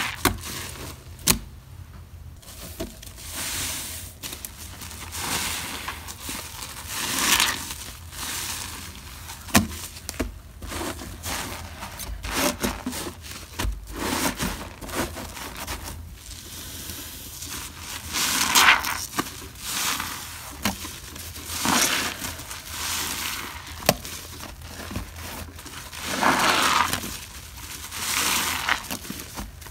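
Soap-soaked, lathered sponges squeezed and rubbed by hand: irregular wet squelches and crackling of foam, with a few sharp clicks.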